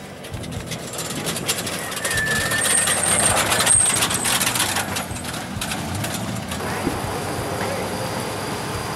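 Trophy Truck Spec off-road race truck approaching and passing close at speed, loudest about three to four seconds in, then settling to a steadier, lower level.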